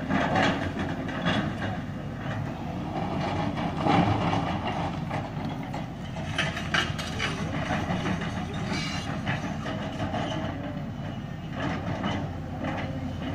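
Lonking hydraulic excavator working broken rock: its diesel engine running under load, with several clanks and clatters of the steel bucket striking and shifting rock.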